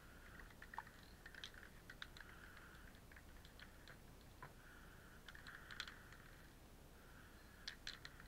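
Near silence, with faint scattered clicks and ticks and a soft hiss that comes and goes.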